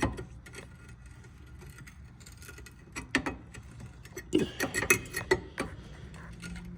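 Worn rear brake pads being worked out of the caliper bracket: scattered metal clicks and clinks, with a louder flurry of knocks and rattles about four to five and a half seconds in.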